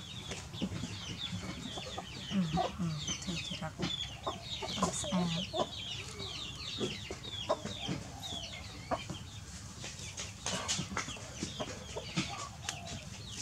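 Chickens clucking and chirping: many short, high calls, with a few lower clucks about two and a half and five seconds in.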